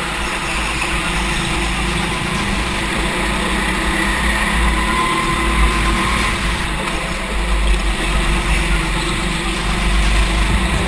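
Go-kart engine running steadily while racing, picked up by a camera mounted on the kart, with a heavy low rumble.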